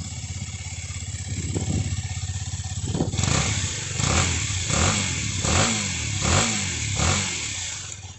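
Single-cylinder sports motorcycle on its stock exhaust, idling steadily, then revved about six times in quick succession from about three seconds in, each blip rising and falling back.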